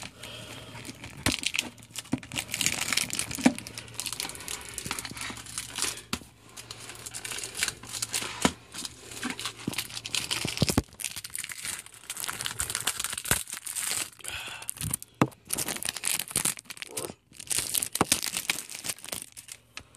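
Plastic shrink-wrap crinkling and tearing as it is worked off a CD jewel case by hand. It comes in irregular rustling bouts, with a few sharp clicks from the case.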